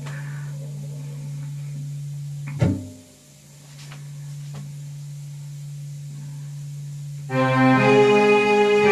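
Electronic keyboard on an organ sound: a low steady note is held for several seconds, broken by a single knock, then a loud, full chord comes in about seven seconds in as the accompaniment begins.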